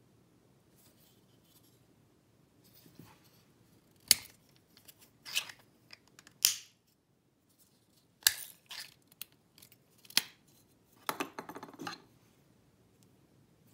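Sharp plastic clicks and scrapes from a 3D-printed espresso WDT needle tool being handled, its parts clicked and slid together, starting a few seconds in and spaced a second or two apart. A short rattling clatter near the end as the tool is put down on a wooden table.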